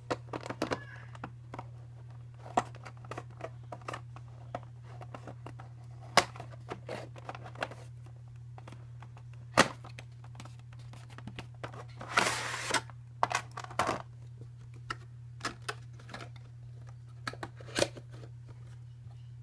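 Cardboard model box and its clear plastic tray being handled and opened by hand: scattered clicks, taps and rustles, with one longer scraping rustle partway through. A steady low hum runs underneath.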